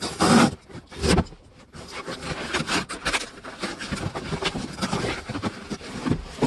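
Cardboard shipping box opened by hand without cutting: a run of tearing, crinkling and scraping of cardboard and paper, loudest in two strokes at the very start and about a second in.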